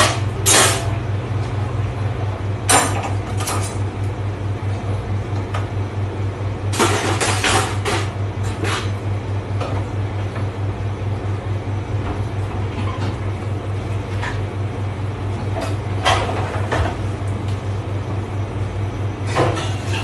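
A steady low hum of commercial kitchen machinery runs throughout. Over it, metal pans, dishes and plastic dish racks clatter in scattered spells at a dishwashing station.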